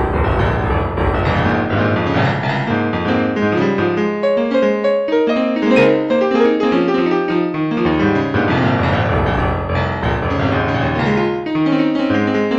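Piano music: a steady flow of notes with no voice over it.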